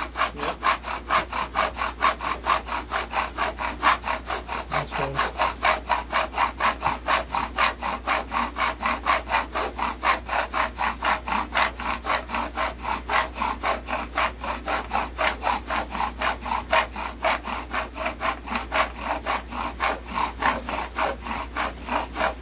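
Eastern hemlock bow drill being bowed hard and fast: the spindle grinds in the hearth socket with a rhythmic wooden rasp on every back-and-forth stroke, several strokes a second without a break. The socket is smoking, the stage where the hot dust is building toward an ember.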